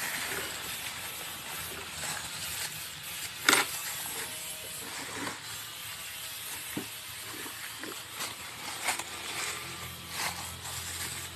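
Small electric car polisher with a faint steady motor hum under scattered knocks and rubbing sounds, the sharpest knock about three and a half seconds in.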